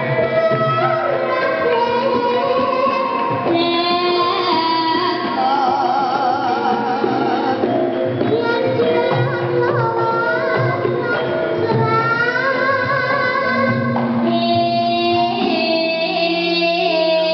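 Javanese gamelan playing with female sindhen singing, the voices sliding and wavering over the ensemble's steady metallophone notes.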